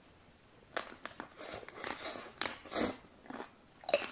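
Close-miked bites into chocolate-coated ice cream bars: the hard coating cracks in crisp snaps, followed by chewing and wet mouth sounds. The first crack comes a little under a second in, with louder bites midway and again near the end.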